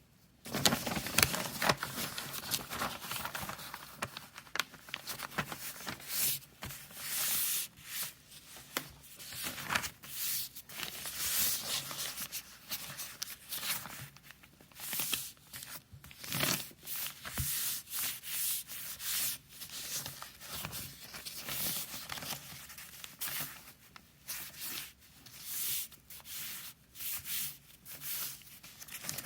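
Chinese calligraphy brush rubbing across paper in a run of short strokes, each a second or so long, with brief pauses between them.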